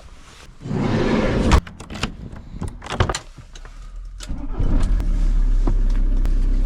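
Rustling and a few sharp knocks as someone settles into a car, then the car's engine starts about four seconds in and settles into a steady idle.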